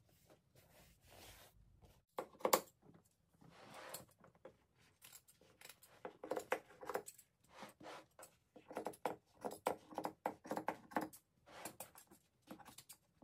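Scissors snipping and upholstery fabric being pulled and torn off a chair seat's plywood base: irregular crisp snips, clicks and rustles, with one sharp loud snap about two and a half seconds in.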